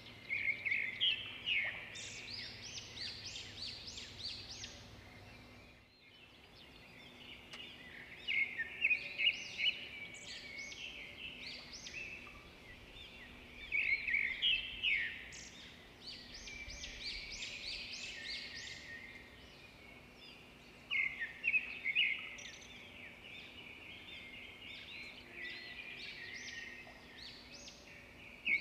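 Birds chirping in repeated bouts of quick, high notes, with quieter gaps between bouts.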